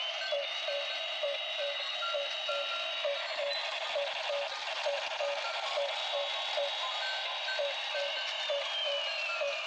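Electronic sounds from battery-powered light-up gear toys: a tinny beeping tune over a pulse about three times a second, with a high siren-like tone that holds, breaks off, comes back and slides down near the end.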